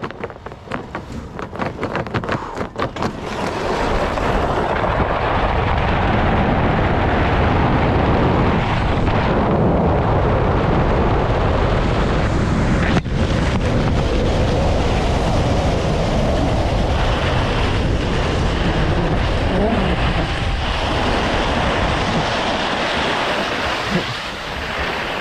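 Wind rushing over a ski jumper's helmet-mounted action camera during the inrun and flight of a ski jump, loud and steady after a few clicks in the first seconds. A single sharp knock comes about 13 seconds in as the skis land, then the rush goes on with the skis running on snow and eases off near the end as the jumper slows in the outrun.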